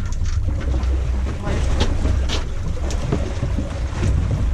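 Fishing boat at sea: a steady low rumble of the boat's engine running, mixed with wind on the microphone, with a few short sharp clicks around the middle.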